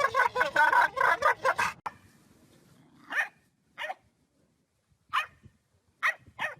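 A dog barking: a quick run of yips over the first two seconds, then single short barks spaced a second or so apart.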